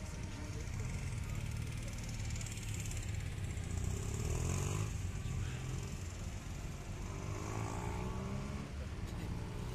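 Cars and police motorcycles of a motorcade running with a steady low engine rumble, one vehicle revving up and pulling away about halfway through.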